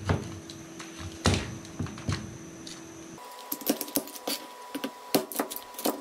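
Crabs being cut in half with a kitchen knife on a chopping board: a few separate knocks, then quick irregular clicking and tapping of blade and shell on the board.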